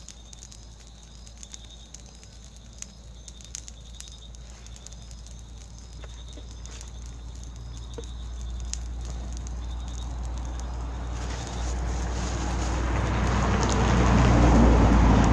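A fire burning on the ground, crackling with faint scattered snaps. From about eight seconds in, a low rushing rumble builds up and grows loud toward the end.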